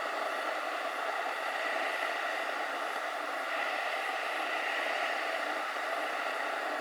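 Steady, even wash of noise with no distinct events, typical of surf and wind heard at a surf break.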